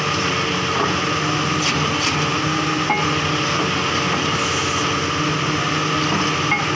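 Borewell drilling rig running steadily under load: a constant engine drone with the even noise of drilling through rock.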